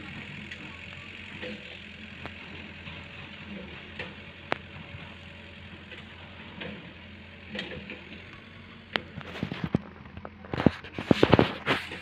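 Steady low hum of a distant engine over outdoor hiss, with a few single sharp clicks. Near the end comes a rapid run of loud clicks and knocks, the loudest sounds here.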